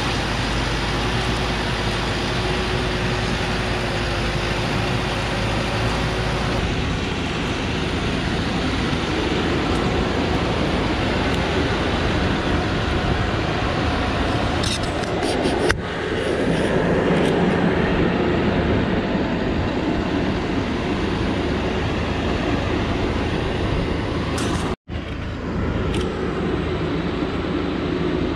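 Diesel engine of a light truck heavily loaded with logs, running hard under load as it climbs a steep dirt slope and drives on along the track. The sound changes abruptly about 7 and 16 seconds in, with a brief dropout near 25 seconds.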